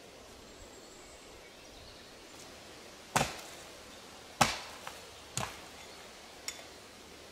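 Axe chopping dead branches: three sharp wooden strikes about a second apart, starting about three seconds in, with a couple of fainter knocks between and after.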